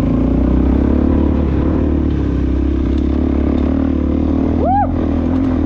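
Single-cylinder supermoto motorcycle engine running at a steady speed on a trail ride. Near the end there is a short tone that rises and falls.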